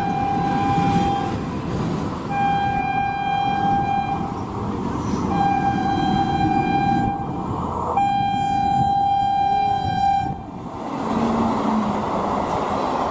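Train horn sounding four long blasts, each one to two and a half seconds long with short gaps, over the steady rumble of a running train. The horn stops about ten seconds in, leaving only the train's running noise.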